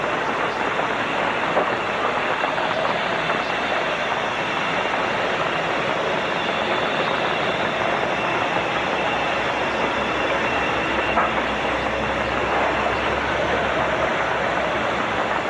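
Steady hiss of rain on a wet street. A vehicle's low rumble swells and fades in the second half.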